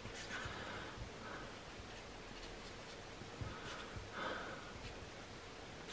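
Pen scratching faintly on paper in short colouring strokes, with a few soft taps in between.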